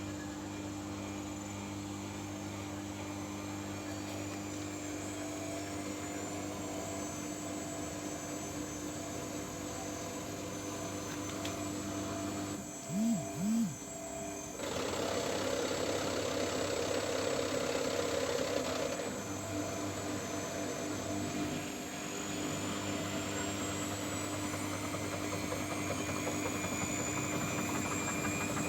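Samsung washing machine running with a steady motor hum. About halfway through, the hum drops out for a couple of seconds with two short whirs, then the machine comes back louder.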